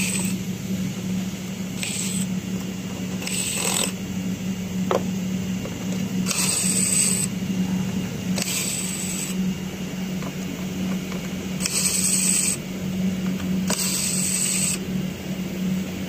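Cordless electric screwdriver running in about six short bursts of half a second to a second each, backing out the screws that hold a watch-winder motor mount, over a steady low hum.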